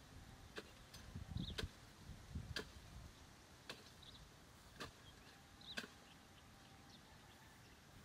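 Faint, regular clicking, one click about every second, with short high chirps among the clicks.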